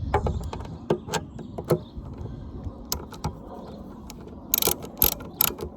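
Scattered metal clicks of a 10 mm socket ratchet tightening the screw that holds a car's gas cap, with a quick run of sharper clicks about four and a half seconds in.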